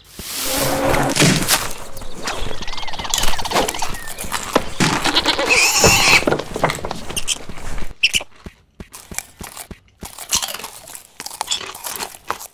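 Cartoon sound effects for animated toy animals: a string of animal cries and squeals for the first several seconds, then short clicks and knocks with brief gaps between them in the later part.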